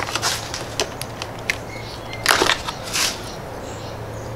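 Hands working small plastic electrical plugs and parts in a motorcycle's wiring: a few light plastic clicks and two short rustling scrapes, over a faint steady low hum.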